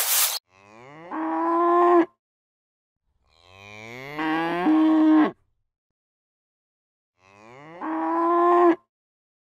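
Cow mooing three times. Each moo lasts about one and a half to two seconds, rises in pitch, is held, then cuts off abruptly, with a gap of a second or more between them.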